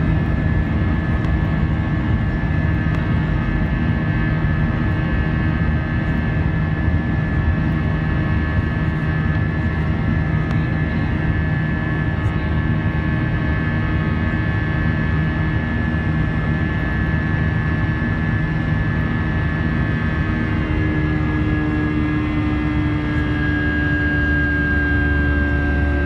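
Airbus A320's IAE V2500 turbofan engine heard from the cabin over the wing while climbing after takeoff: a steady, loud drone with a whining tone. Near the end the whine drops slightly in pitch and a lower hum comes in.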